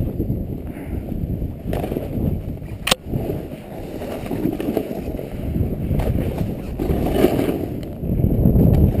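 Snowboard sliding and turning through soft snow, a rough scraping rush that swells and eases with each turn, mixed with wind on the microphone. A sharp click about three seconds in.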